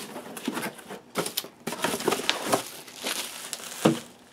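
Packaging crinkling and rustling in irregular bursts as a box is opened by hand, with a sharper knock near the end.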